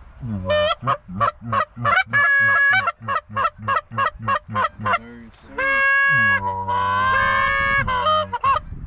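Canada goose honking: a fast run of short clucks, about four a second, then a few long drawn honks.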